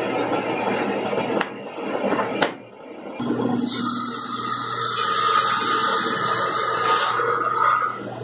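Sliding-table panel saw running. From about three and a half seconds in it cuts through a cabinet panel, a high hiss with a steady whine that lasts a few seconds and then eases off. A single sharp knock comes just before the cut.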